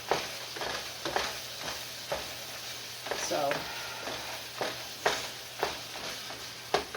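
Hamburger (ground beef) frying in a pan, a steady sizzle, with a series of sharp clicks and knocks spread through it.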